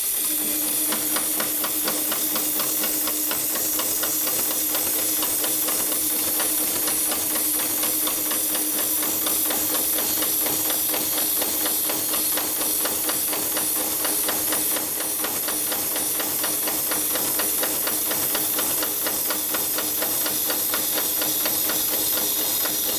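Heavy-duty industrial sewing machine for rope running steadily at speed, its needle mechanism knocking in a fast, even rhythm over a constant hum and hiss.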